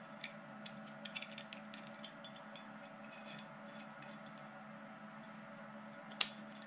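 Small metallic clicks and ticks as a steel nut and bolt are handled and threaded by hand through a motor-mount bracket, over a steady background hum; one sharper clink about six seconds in.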